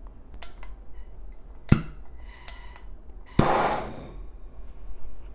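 Handheld gas blowtorch being lit: a few clicks and one sharp, loud click, then the flame catches with a sudden whoosh about three and a half seconds in and settles into a faint, steady high hiss.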